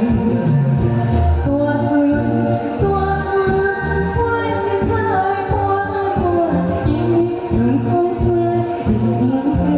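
A singer performing a song with a sung melody over a backing track with a steady beat.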